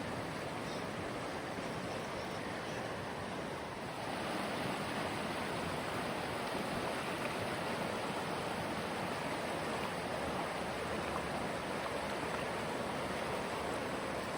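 Steady rush of the Virgin River's fast-flowing water, a constant noise that gets a little louder about four seconds in.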